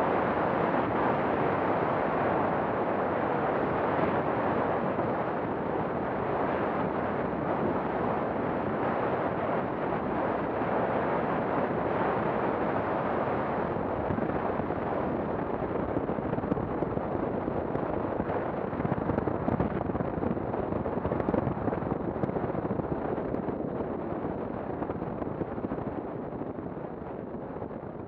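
Wind rushing over the microphone of a camera on a motorcycle riding a gravel forest track, with road and engine noise blended underneath. The noise holds steady, then fades away over the last few seconds.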